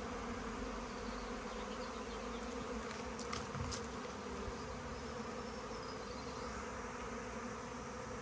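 Swarm of honey bees in flight, a steady loud buzzing drone of thousands of wings as the swarm arrives to move into a new hive.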